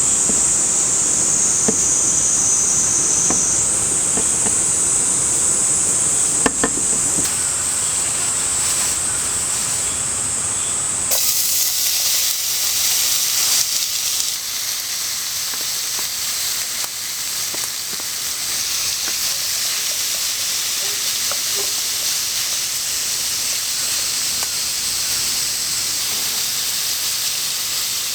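Cicadas buzzing in a steady high-pitched chorus that shifts pitch a couple of times. About eleven seconds in it cuts to a steady hiss.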